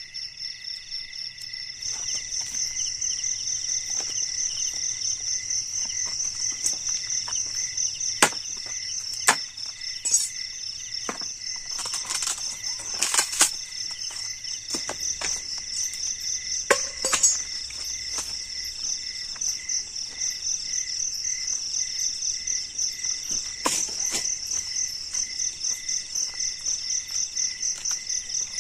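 Chorus of crickets and other night insects chirping in fast, steady pulses, louder from about two seconds in. Several sharp knocks and clatters are scattered through it.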